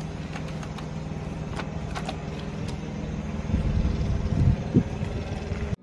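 A vehicle engine idling steadily as a low, even hum, with a few light clicks and knocks over it.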